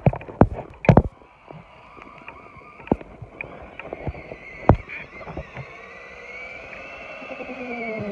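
Stock Tamiya Super Clodbuster's electric motors whining as the truck drives through snow, with sharp clicks from the old stick-type radio controller. Near the end the whine rises and then drops in pitch.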